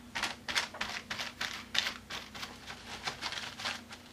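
Paintbrush scrubbing gesso over a page covered in torn masking tape: quick scratchy strokes, about four a second.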